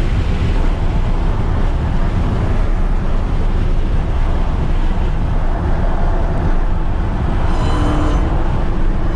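Dodge Charger SRT Hellcat driving on a wet road: steady low engine rumble under tyre and wind noise. A short pitched tone comes in near the end.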